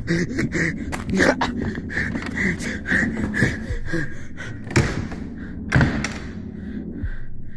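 A person panting hard while hurrying on foot across a wooden floor, with scuffing footfalls and knocks, and two loud thumps about five and six seconds in.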